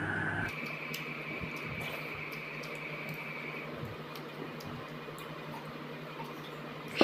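Eating sounds: faint wet clicks of chewing and of fingers mixing rice and fish curry on a plastic plate, over a steady low hum and a thin high whine that stops about halfway through. A sharp knock comes at the very end.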